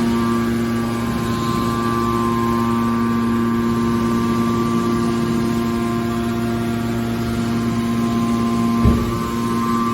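Mobile hydraulic scrap metal baler's power unit running with a steady hum, with one short thump about nine seconds in.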